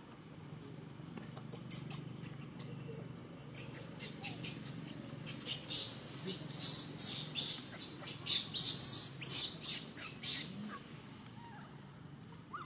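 Baby macaque screaming: a rapid run of short, shrill cries, about two to three a second, starting about five seconds in and stopping about five seconds later. It is an infant's distress call for its mother.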